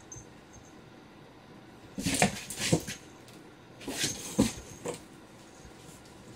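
Cats scuffling in a cardboard box: two short bursts of cardboard scraping and knocking, about two seconds in and again about four seconds in, as they paw and swat at each other.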